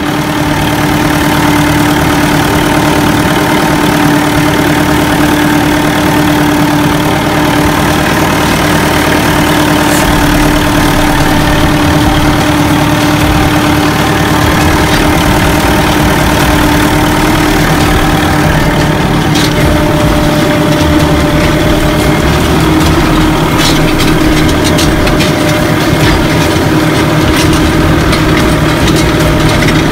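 Fiat 640 tractor's four-cylinder diesel engine running steadily, with its engine note rising slightly about two-thirds of the way through and a few light rattles and clicks.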